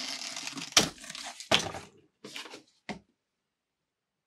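Cardboard shipping box being opened and handled by hand: a scraping rustle with two sharp knocks, then two shorter rustles, stopping about three seconds in.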